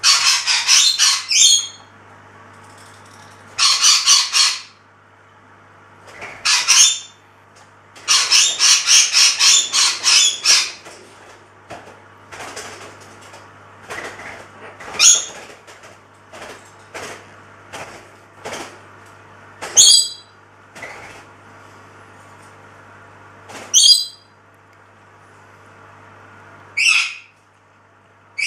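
A bird calling: loud rattling bursts of rapid repeated notes through the first ten seconds, then single short, sharp rising chirps every few seconds. A steady low hum runs underneath and stops near the end.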